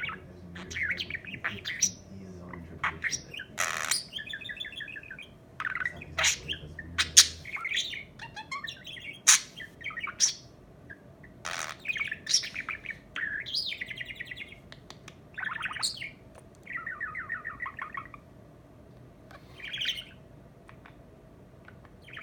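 Budgerigar chirping and chattering in short, quick bursts, mixed with a few sharp clicks.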